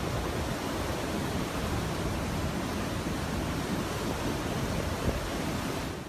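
Hurricane wind and driving rain as a steady, dense noise across the whole range of pitch, cutting off suddenly at the end.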